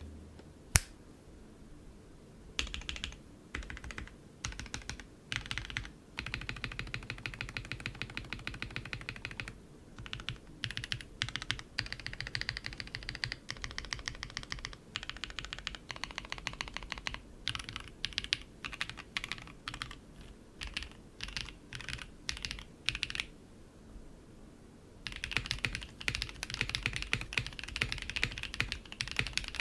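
Typing on a Geonworks Frog TKL mechanical keyboard, a top-mount board, fitted with Red Jacket linear switches. The switches are long-pole, full-nylon and factory hand-lubed, used stock. The typing comes in runs of quick keystrokes broken by short pauses, with a longer pause shortly before a fast, unbroken run at the end. One single sharp click sounds about a second in.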